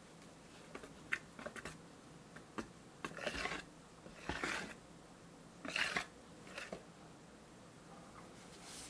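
Wire whisk folding meringue into chocolate cake batter in a glass bowl: a few light clicks of the wires against the bowl, then three short swishing strokes through the batter a few seconds in, and a smaller one after.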